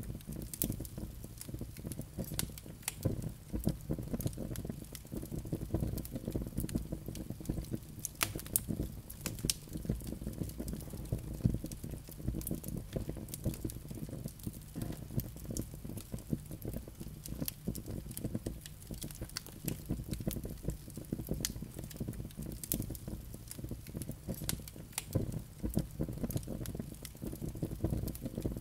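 Wood fire burning in a fireplace, crackling with irregular sharp pops and snaps over a low, steady rumble of the flames.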